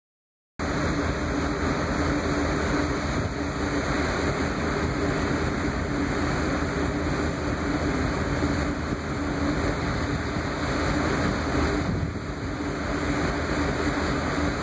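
Large ferry under way: a steady engine rumble with a low hum running through it, mixed with the rushing of its churning wake. The sound starts abruptly about half a second in.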